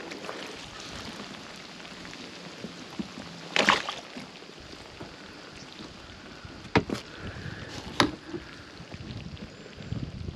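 Kayak being paddled across the pond, with water swishing and a few sharp knocks, the strongest one a little under four seconds in.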